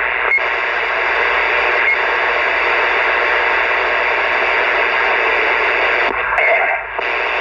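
CB radio speaker putting out loud, steady static hiss on an open channel, with two brief dips near the end.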